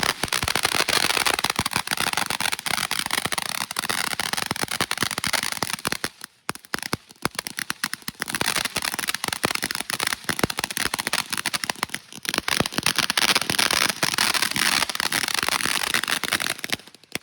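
Fireworks crackling: a dense, fast run of loud pops and cracks for about seventeen seconds. The pops ease off briefly twice, about six and about twelve seconds in, then cut off abruptly near the end.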